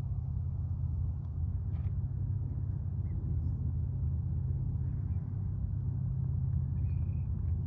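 Steady low outdoor rumble, even in level throughout, with a brief faint high chirp near the end.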